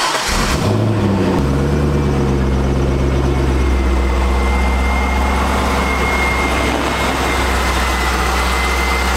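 Cammed C5 Corvette V8 idling, its revs stepping down about one and a half and four seconds in, then running steadily as the car rolls slowly out of the garage. A faint high whine sits on top of the engine note.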